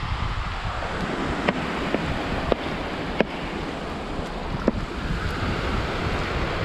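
Sea surf washing steadily on the shore, with wind buffeting the microphone. About five sharp clicks sound between about a second and a half and five seconds in.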